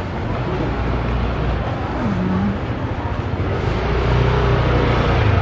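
Steady background hum and rushing noise of a busy street-food market, with faint voices in the background.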